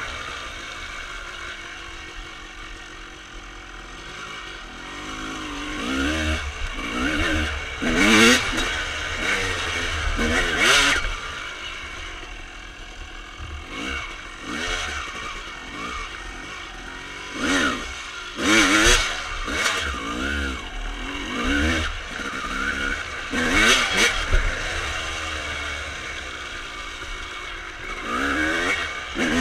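The single-cylinder two-stroke engine of a 1995 Honda CR250R with full Pro Circuit pipes, ridden on a trail. The revs climb sharply in repeated bursts of throttle and fall back between them, with a lower, quieter stretch off the throttle a few seconds in.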